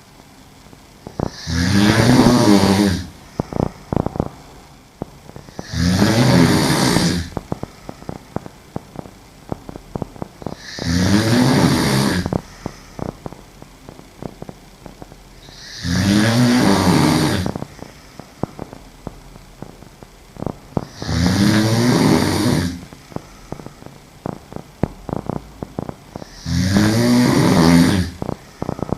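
A woman snoring heavily while asleep on her back: six loud, rasping snores on the in-breath, about one every five seconds, with short clicking sounds in the gaps between them.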